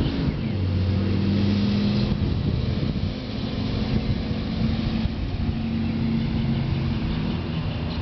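A motor engine running steadily nearby, its low hum shifting a little in pitch.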